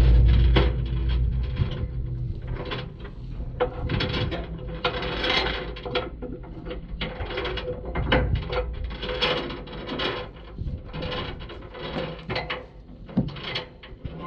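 Ratchet strap being tightened over a round hay bale on a wooden trailer deck: a long run of irregular ratchet clicks and rattles.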